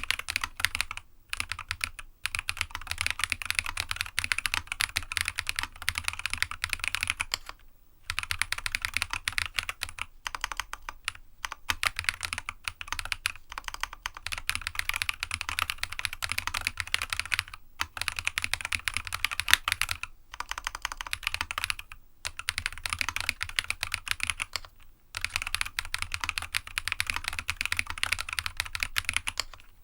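Continuous fast typing on a GEONWORKS F1-8X custom mechanical keyboard with Jade Black switches, a polycarbonate sandwich plate and PBT dye-sub keycaps: a rapid stream of key clicks with brief pauses every few seconds.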